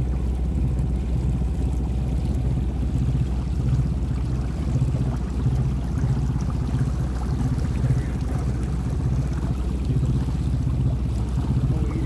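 Small sailing yacht's engine running steadily at low pitch, the yacht under power with its mainsail covered, with water washing along the hull.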